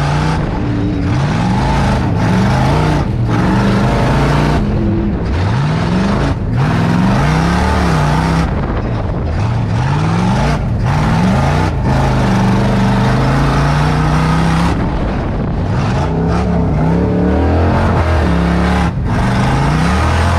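Tuff truck's engine heard from inside the cab, revving up and dropping back over and over as the throttle is worked on a rough dirt course, over steady road and chassis noise.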